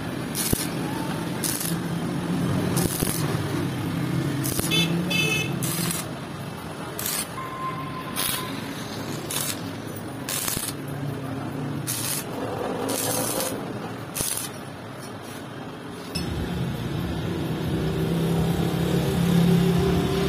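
Stick (arc) welding on a motorcycle cylinder head's valve seat: the arc crackles in short bursts, about one a second, over a low hum. The weld is run onto the seat to heat and loosen it for removal. At about 16 s this gives way to a steadier low rumble.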